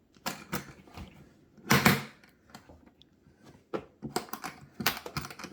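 Clicks and knocks from a plastic Craftsman rolling toolbox being handled, with one louder knock about two seconds in and a run of quick clicks near the end.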